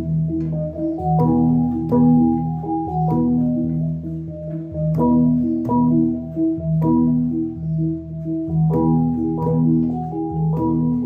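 Tây Nguyên cồng chiêng gong ensemble playing: tuned gongs struck in a repeating interlocking pattern, each stroke ringing on as a steady pitched tone over the others.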